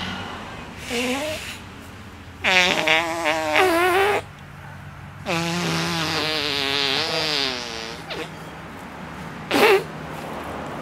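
A teenage boy laughing in high-pitched, wavering voiced bursts: a short one, then two long ones of about two seconds each, and a short sharp one near the end.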